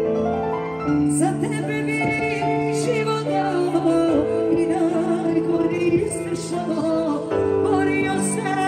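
Live Balkan folk-pop band music over the hall's PA: sustained keyboard chords under a wavering melodic lead line that comes in about a second in.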